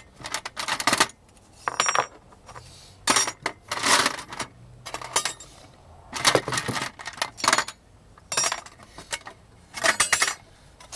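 Small metal pieces clinking and rattling against each other in repeated short bursts: a locksmith sorting through a set of metal lock-plug followers to find the right size.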